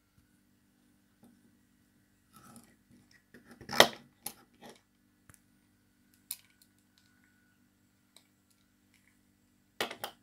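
A spinning fishing reel being handled and cranked: a few sharp clicks and knocks, loudest about four seconds in, with a couple more near the end. There is no steady running noise from the rotor.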